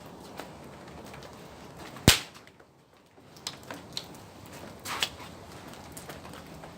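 A single loud, sharp crack about two seconds in, followed by a few softer clicks and pops.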